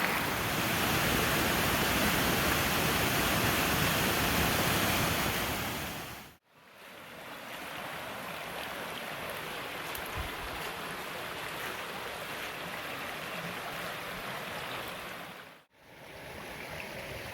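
Waterfall and creek water rushing steadily. The sound dips out and comes back twice, about six and fifteen seconds in, and is quieter after the first dip.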